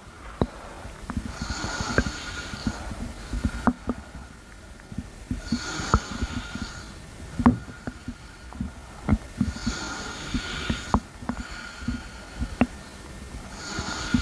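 Close-up breathing, a noisy, faintly whistling breath about every four seconds, with short clicks and pops of stomach gurgling scattered through it.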